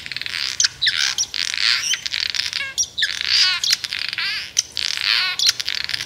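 Barn swallow singing: a continuous, fast jumble of high twittering and chattering notes, broken by quick rattly stretches.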